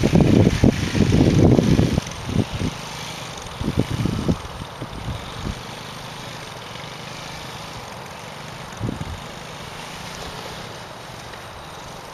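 Small youth ATV engine running at a steady distant drone as the quad rides away. Loud wind buffeting on the microphone for the first two seconds.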